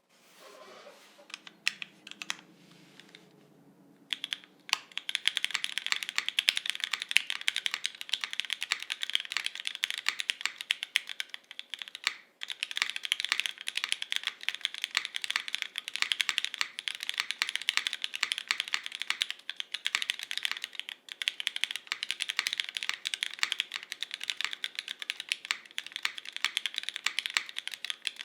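Fast, continuous typing on a Jane v2 ME custom mechanical keyboard: lubed Cherry MX Black linear switches on a top-mounted polycarbonate plate, under GMK doubleshot ABS keycaps. It starts about four seconds in, with a couple of brief pauses.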